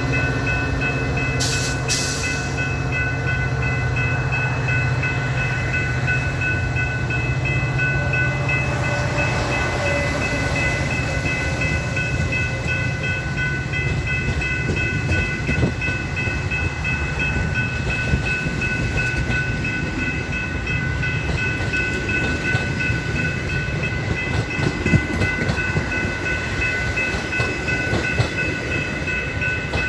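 Metra commuter train running past with a steady rumble. A locomotive hum is heard for the first several seconds, then the rough noise of wheels on rail. A bell rings rapidly and continuously throughout.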